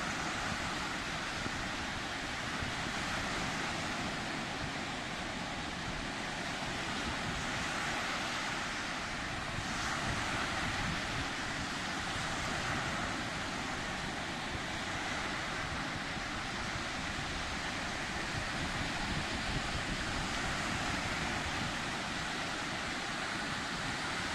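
Sea waves washing in steadily, a continuous rush that swells now and then as a wave breaks, with wind rumbling on the microphone.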